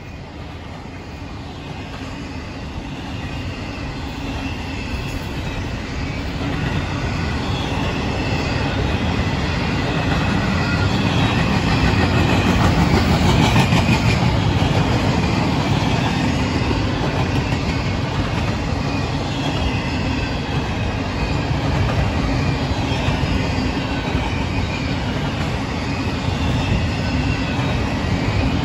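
CSX intermodal freight train of double-stack well cars rolling past, its steel wheels rumbling on the rails with a thin high wheel squeal. The sound grows louder over the first dozen seconds and then holds steady.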